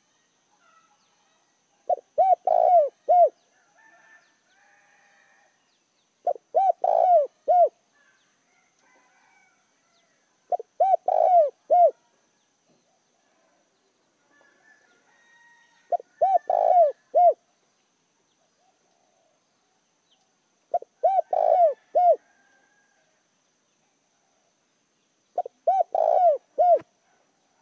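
Spotted dove cooing: six short phrases of several deep coos each, repeated every four to five seconds. Faint chirps from other birds fill the gaps between phrases.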